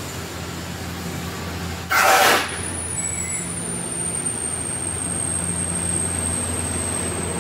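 Bandsaw fastener-cutting machine running with a steady low hum. About two seconds in comes a loud, short burst of hiss, followed by a faint high-pitched whine that holds to the end.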